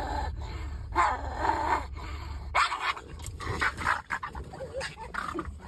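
A pug and a bulldog fighting: a burst of growling about a second in, then a louder, choppy flurry of snarls and barks from about two and a half seconds in.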